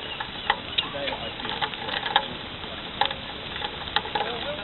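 Five-a-side football in play: scattered sharp knocks and taps from ball kicks and footsteps over a steady hiss, with faint distant calls from players.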